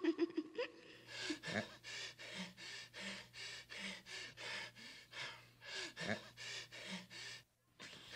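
A character breathing heavily in quick, even gasps, about two a second, that stop just before the end.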